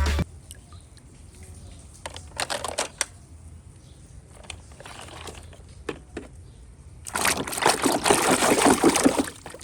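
Water splashing and trickling as a plastic toy is washed by hand. A few small splashes and knocks come first, then a louder spell of pouring, splashing water for about two seconds near the end.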